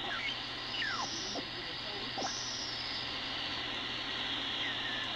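Shortwave receiver audio from an SDRplay RSP1 software-defined radio tuned across the 31-metre band around 9.75 MHz: a steady static hiss with several whistles that glide down in pitch as the tuning sweeps past station carriers.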